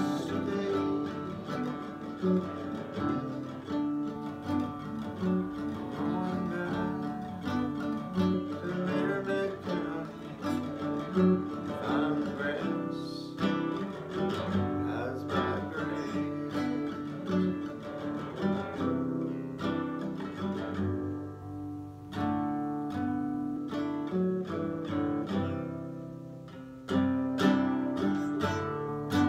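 Classical-style acoustic guitar strummed and picked as a song accompaniment, with a brief lull about three quarters of the way through, then a sudden louder strum.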